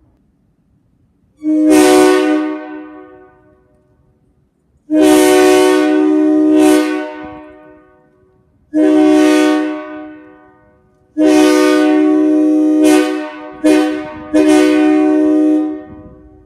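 Locomotive air horn blown in a series of blasts: a short one, a longer one with a quick second blow near its end, another short one, then a long sounding broken by several quick stabs. Each blast fades out over a second or two after it is cut off.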